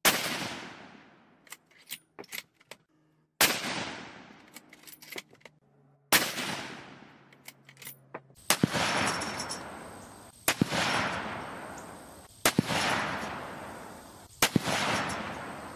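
A .243 Winchester bolt-action rifle, a Winchester Model 70 Featherweight Compact, firing seven shots, each followed by a long rolling echo. The first three come a few seconds apart, with small clicks of the bolt being worked between them; the last four follow about two seconds apart.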